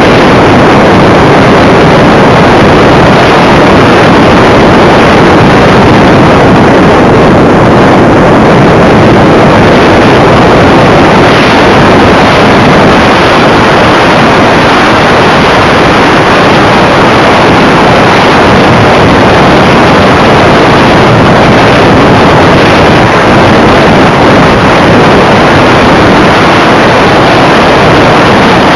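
Steady, very loud rush of airflow and motor noise on a camera carried aboard a flying radio-controlled model aircraft, with wind buffeting the microphone and no distinct tones.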